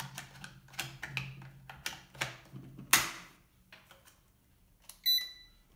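Irregular clicks and knocks from handling a 1/18 scale RC monster truck and its transmitter as it is switched on, the sharpest about three seconds in. A short electronic beep sounds about five seconds in.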